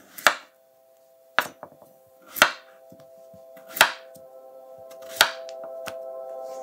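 Kitchen knife slicing through peeled raw potatoes on a wooden cutting board: five cuts about a second apart, each ending in a sharp knock of the blade against the board.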